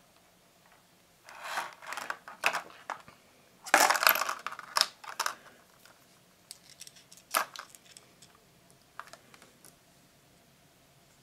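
Earphones and their accessories being handled: clicks, clinks and rustles in short bursts, loudest about four seconds in, with one sharp click a little after seven seconds.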